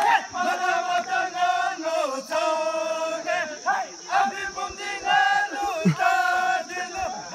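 A group of men singing a Bhutanese folk song in unison, with long held notes that slide between pitches.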